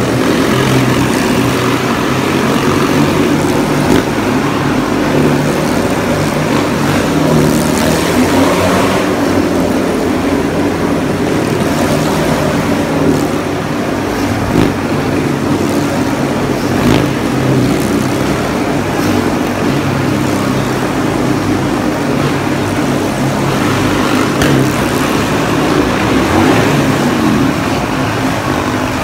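Motorcycles riding the vertical wooden wall of a Wall of Death, their engines running continuously with the note rising and falling as they circle.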